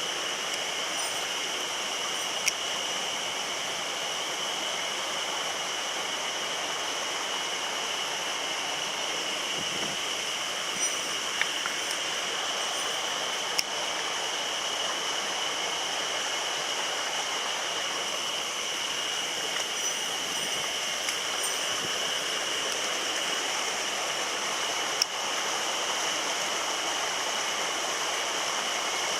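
Mountain stream rushing steadily, with three sharp clicks spread through it.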